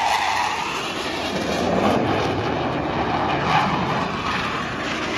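BAE Hawk jet trainer flying low past the crowd: a steady, rushing jet-engine noise with no sharp breaks.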